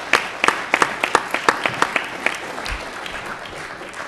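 Audience applause, with sharp claps close by in the first two seconds, thinning out and dying away toward the end.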